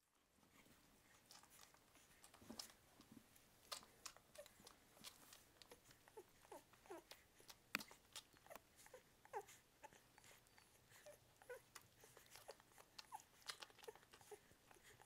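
Newborn English springer spaniel puppies nursing: a faint, irregular run of wet suckling clicks and smacks, with many brief high squeaks and little whimpers scattered through it.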